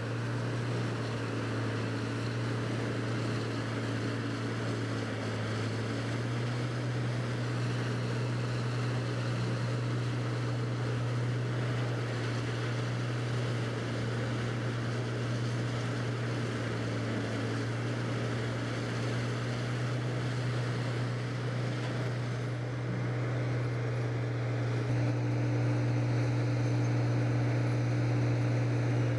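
Diesel engine of a large wood-processing machine running steadily: a constant low drone with a hiss of noise over it, getting somewhat louder about 25 seconds in.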